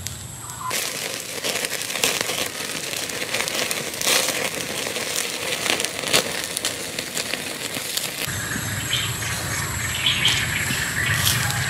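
Wood fire crackling, with many sharp pops and snaps. It starts abruptly about a second in and cuts off about eight seconds in, leaving a quieter background.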